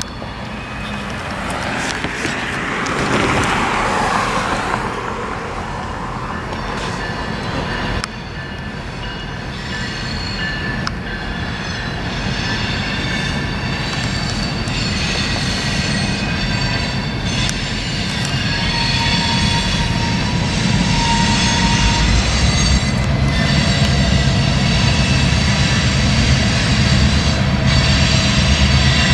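BNSF GP38-2 diesel-electric switcher locomotive running close by on street trackage, its EMD engine drone growing louder through the second half. Steel wheel flanges squeal in several steady high tones as the train eases along the track. A broad whoosh swells and fades a few seconds in.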